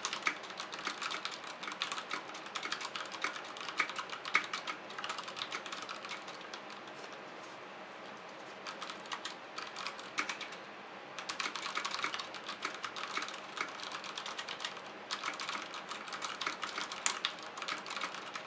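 Fast typing on a Ducky Shine 3 mechanical keyboard with tactile Cherry MX Brown switches and PBT keycaps: a dense run of key clacks that thins to a few scattered strokes for several seconds in the middle, then picks back up.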